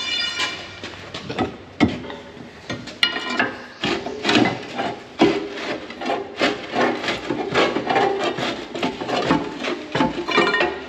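Steel pry bar scraping and knocking against a manure pump's gearbox housing as it is worked loose, in an irregular run of grinding scrapes and knocks. A brief ringing metal clang comes right at the start.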